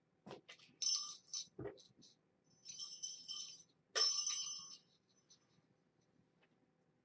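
Small metal bells jingling in three short shaken bursts, with a couple of soft thumps among them.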